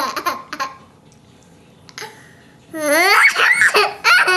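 Toddler laughing and giggling: a few short giggles at the start, a lull, then a longer high-pitched laugh that rises and falls in pitch about three seconds in.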